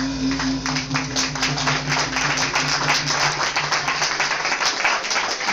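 A live band's closing chord rings out on guitars and fades away over about the first three seconds, while an audience claps.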